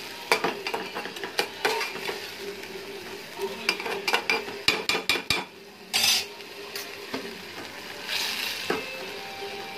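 Metal spatula scraping and clinking against a metal pot, with many sharp irregular clicks, while soaked rice, chicken and vegetables are stirred and fried over high heat with a steady sizzle.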